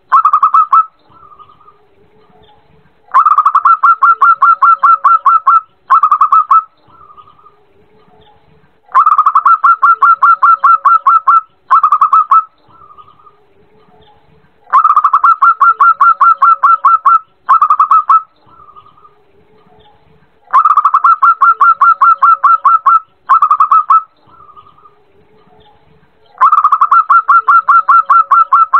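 Zebra dove (perkutut) calling, the call offered as a female's call to a male: a rapid run of staccato cooing notes lasting a couple of seconds, then a short burst and a soft note, the phrase repeating about every six seconds, five times.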